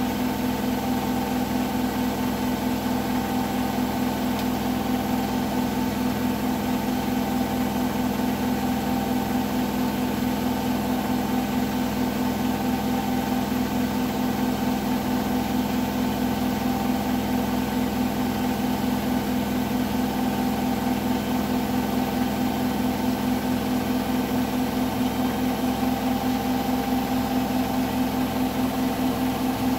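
Hotpoint washing machine in its final spin at 1400 rpm: a steady motor hum from the drum spinning at full speed, with a fast, even pulsing running through it. At this speed the owner reports a weird knocking noise.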